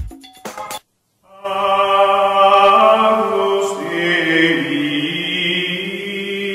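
Choral chant: several voices holding long, steady chords over a low held note, beginning about a second and a half in after a brief silence.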